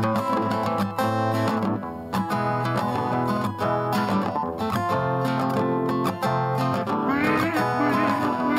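Instrumental passage of a rap track: a plucked guitar plays over a steady bass line.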